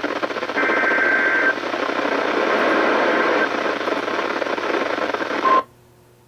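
Weather radio receiver playing a noisy NOAA Weather Radio broadcast: loud rough static, with a burst of warbling EAS SAME data tones about a second in. Just before five and a half seconds a short steady tone begins, and then the audio cuts off abruptly to a faint hum.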